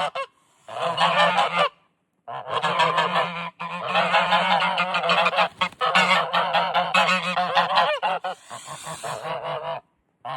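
Geese honking in fast, overlapping runs of short nasal calls. The honking is broken by abrupt silent cuts, twice in the first couple of seconds and once near the end.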